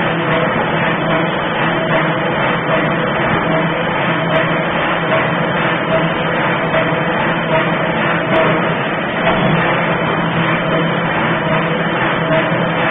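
A 1.5-ton forging hammer running as a hot workpiece is forged. It makes a loud, steady mechanical din with a faint regular pulse.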